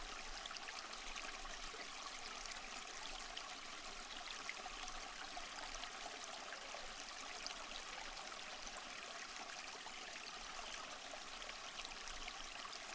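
Water stream flowing steadily: a faint, even rushing and trickling with no changes.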